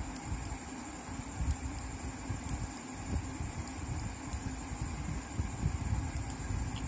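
Low rumbling room noise with irregular soft thumps, typical of a handheld phone's microphone being moved, under a faint steady high whine and a few faint ticks.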